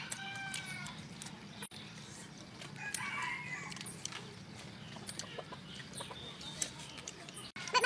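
Chickens calling: a rooster crowing in the first second, then another drawn-out call about three seconds in. Faint small clicks and a low steady hum lie underneath.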